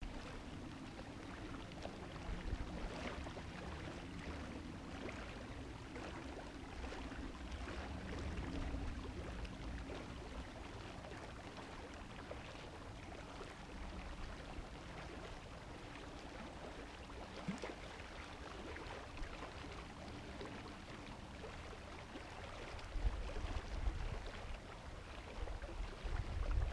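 Small waves lapping and splashing irregularly against the reservoir's edge, with wind rumbling on the microphone that grows stronger near the end.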